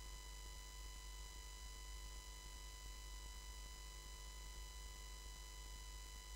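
Faint, steady hum and hiss with several fixed high tones, unchanging throughout; no chest-beating or crowd voices stand out.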